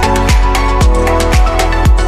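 Background electronic dance music with a steady kick drum at about two beats a second under sustained synth chords.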